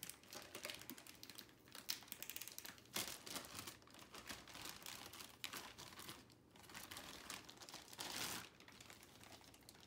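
Clear plastic packaging bag crinkling in irregular bursts as a small plastic toy crate is worked out of it.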